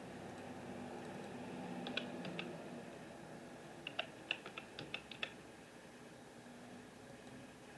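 A few light clicks about two seconds in, then a quick irregular run of about eight clicks a second or so later, over a low steady rumble.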